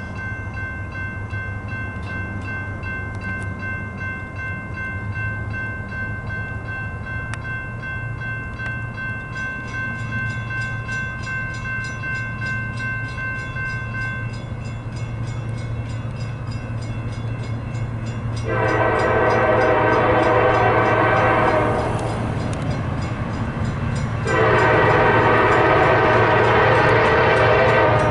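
Train with a steady low engine rumble sounds two long horn blasts, the first about three seconds long and the second starting a few seconds later and still going at the end.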